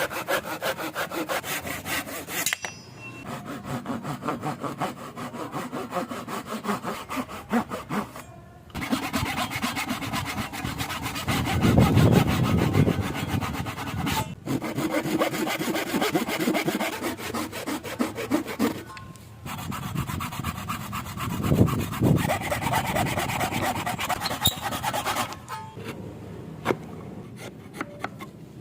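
Hand saw cutting wood with fast, regular back-and-forth strokes, in several short runs joined by abrupt cuts. The last few seconds are quieter.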